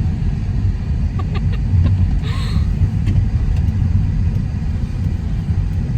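Steady low road rumble of a car driving on wet roads, heard inside the cabin, with a brief hiss about two and a half seconds in.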